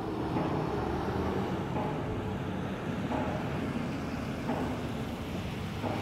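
Distant pile-driving hammer striking at a steady pace, a dull knock about every second and a half (four blows), over the low rumble of vehicles passing on the street.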